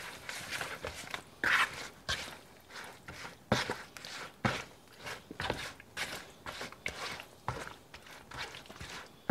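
Tongs tossing chunks of raw chicken in marinade in a plastic mixing bowl: irregular wet squishes with clicks and taps of the tongs against the bowl.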